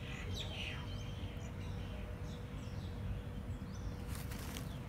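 Outdoor ambience: a steady low rumble with small birds chirping faintly, and a brief rustling noise about four seconds in.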